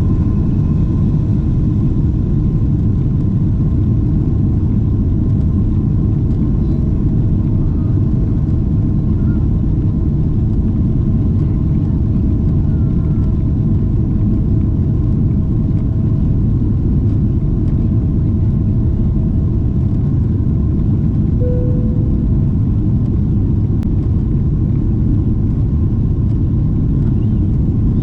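Steady cabin noise inside a Boeing 777-300 airliner: a loud, even, deep rumble with faint steady engine tones riding over it.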